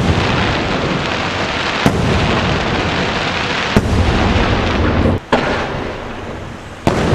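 Aerial firework shells bursting, with sharp bangs about every two seconds over a steady din of further bursts.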